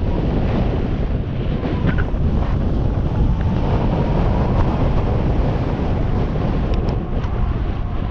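Wind buffeting the microphone of a camera on a moving e-bike: a steady, loud low rumble.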